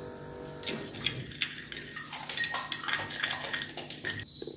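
A metal spoon clinking and scraping repeatedly against a small dish while honey is mixed into ginger juice and ground pepper. The clinks start about a second in and stop shortly before the end.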